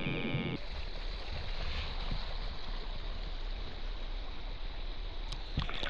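Steady rush of a small creek's flowing water, with a few sharp splashes or knocks near the end.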